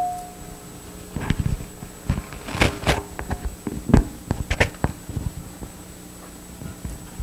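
A run of irregular soft knocks and clicks, about a dozen over four seconds, over a steady electrical hum.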